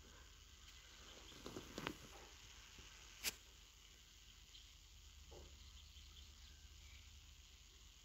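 Near silence: faint outdoor hiss, broken by a few soft knocks just before two seconds in and a single sharp click a little after three seconds.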